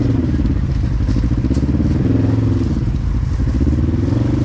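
Side-by-side UTV engine running under load as the machine crawls over rough ground, its revs rising and falling in a few swells.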